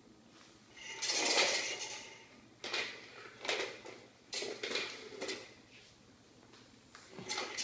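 Plastic pull toys clattering and rattling as they are jerked by their strings across a hard hearth and floor, in a handful of short bursts with quiet gaps between.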